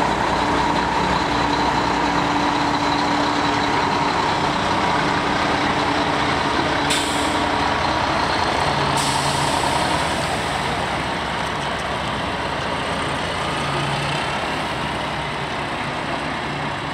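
Mack semi tractor's diesel engine running steadily as the truck pulls away, with two short hisses of air from the air brakes a couple of seconds apart about halfway through.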